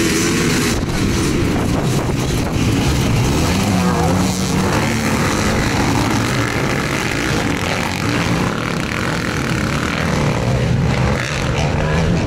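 A pack of off-road dirt bikes accelerating hard off the start line and past, many engines revving at once, their pitch rising and falling as the riders run up through the gears.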